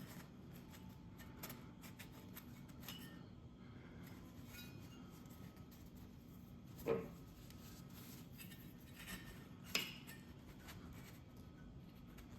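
Quiet handwork with small metal tools on a motorcycle cylinder head: faint scattered clicks and light rubbing, with two sharper metallic clinks about seven and ten seconds in.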